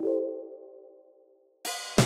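Outro background music. A held chord struck at the start fades away over about a second and a half, then a louder passage with drums and cymbals starts near the end.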